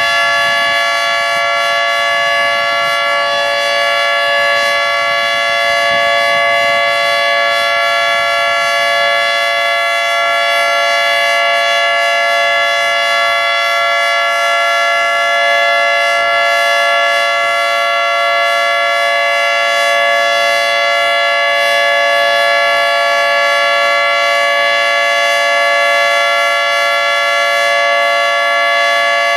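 Federal Signal 3T22 outdoor warning siren sounding the steady alert signal of a routine monthly test: a loud, sustained three-tone chord held at constant pitch with no rise or fall.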